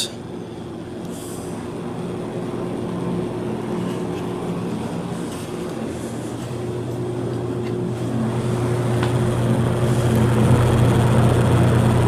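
Westinghouse motor of a vintage Lakewood S-223 box fan running: a steady rush of air with a noticeable motor hum and a vibration that has only just started and whose cause is unknown. The hum grows louder in the second half.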